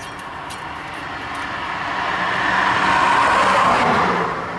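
A vehicle passing by: a rushing noise that builds for about three seconds, then fades near the end.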